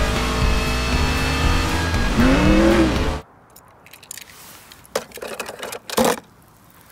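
Animated-film soundtrack of stock-car racing: loud race-car engine noise with music underneath and an engine note that rises and falls near the end, cutting off sharply about three seconds in. A few sharp plastic clicks and knocks follow as a toy car is handled and set into a toy transporter trailer.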